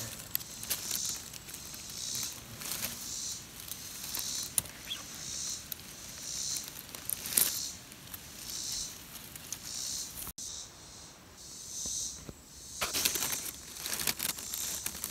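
Dry grass and leaves of a nest rustling and crackling as fingers and a stick poke into it. A short, high rasp repeats about once a second under it.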